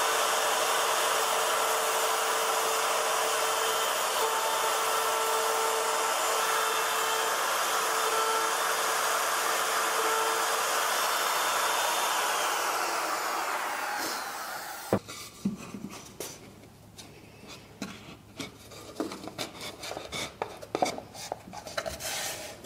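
Router in a Tianli mortising jig running at full speed while an 8 mm bit cuts a mortise in plywood, a loud, steady motor noise with a steady whine. About 12 seconds in it is switched off and spins down, and the last seconds hold light knocks and rubs of the board being handled.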